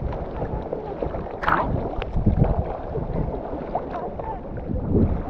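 Sea water splashing and sloshing around a camera held at the waterline as a surfer hand-paddles a surfboard through small waves, with wind rumbling on the microphone. There is a sharp splash about a second and a half in.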